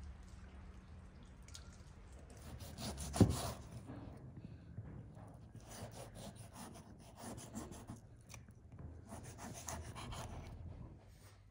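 Repeated rubbing or scraping strokes, with one sharp knock about three seconds in.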